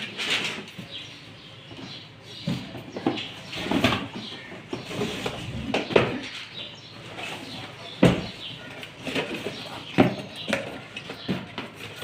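Cardboard boxes and plastic wrapping being handled: rustling and scraping, with several sharp knocks as packed cookware boxes are lifted out of a shipping carton and bump against it.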